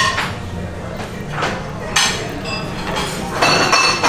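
Dishes, glassware and cutlery clinking and knocking in a restaurant: several sharp strikes, some with a brief ringing tone, over a steady low background hum.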